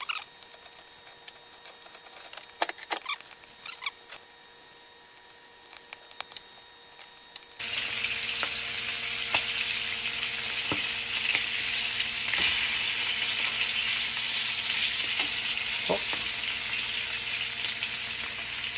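Flour-dusted veal sweetbreads shallow-frying in oil in a skillet. At first it is fairly quiet, with a few light utensil clicks. About seven and a half seconds in, a loud steady sizzle starts and runs on, with occasional clicks of a fork turning the pieces.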